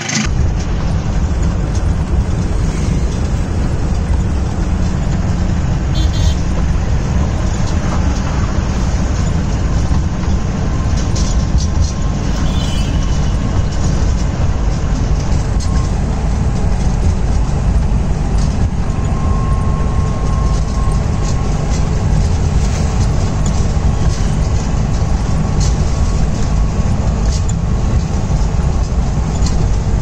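Mahindra Thar being driven, heard from inside: a steady, heavy low rumble of engine, tyres and wind noise.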